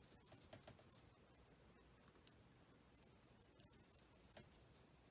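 Near silence with faint small clicks and rustles: fingers handling thin wires while a crimped pin is pushed into a tiny plastic JST SH connector housing.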